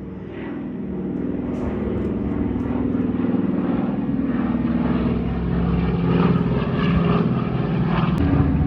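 Douglas Dakota's twin radial piston engines droning in a propeller-aircraft flypast, growing louder as it approaches.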